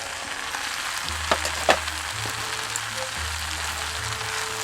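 Onions and freshly added potatoes and garlic frying in a stainless Dutch oven, with a steady sizzle and two sharp clicks about a second and a half in.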